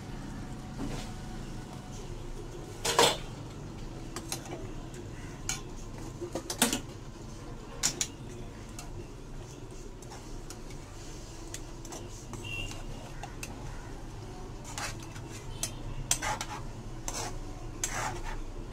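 A ladle stirring a thick fish curry in a metal kadai, with scattered clinks and scrapes against the pan, the loudest about three seconds in. A steady low hum runs underneath.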